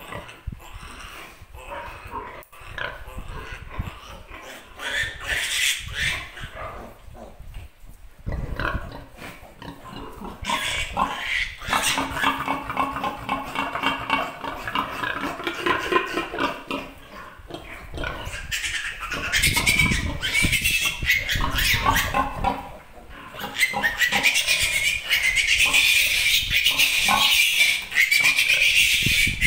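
Piglet squealing while held for its iron injection, with scattered short noises early on, then long high-pitched squeals from about ten seconds in that are loudest and most continuous near the end.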